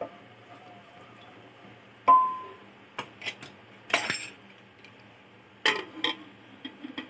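Metal clinks and clatters from a Hawkins pressure cooker and its lid being handled. A sharp ringing clink comes about two seconds in, then a few more knocks and clatters as the lid is set on.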